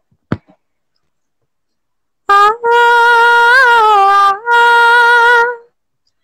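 A woman's voice hums two long held notes, the wordless opening of an old Hindi film song. The first note wavers and sags slightly; the second is held steady. The sound is loud and close on a phone microphone.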